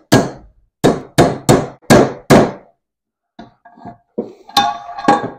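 A hammer striking pliers held against an oil pump pickup tube, driving the tube into a Chevy small-block oil pump: six quick metal-on-metal blows, a few light knocks, then two harder blows that ring near the end. The tube is not going in.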